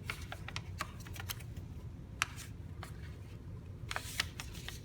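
Sheet of paper being folded and creased by hand: scattered light crackles and taps, with a sharper one about two seconds in and a small cluster near the end.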